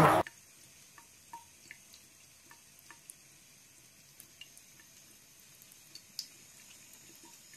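Faint trickle of a thin stream of water from a bathroom faucet into a sink, with scattered soft drips.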